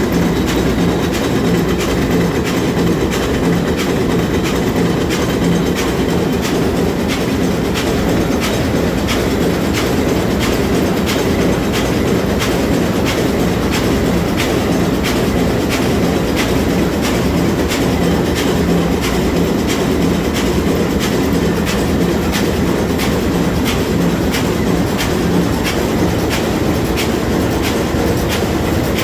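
Sulzer 6RTA62 six-cylinder two-stroke marine diesel main engine running at full speed: a loud, steady mechanical din with a low hum and a regular sharp ticking throughout.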